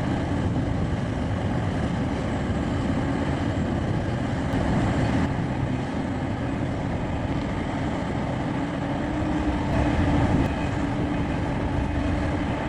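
A heavy vehicle engine running steadily, with a constant low hum holding the same pitch throughout.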